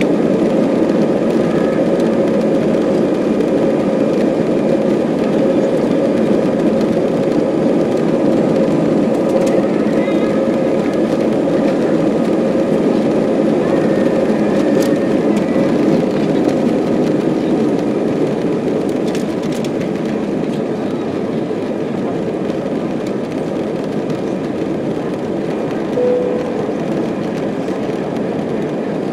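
Jet airliner's engines at take-off thrust, heard from inside the cabin over the wing, with the rumble of the wheels on the runway during the take-off roll. The noise eases a little past the halfway point as the aircraft lifts off and climbs.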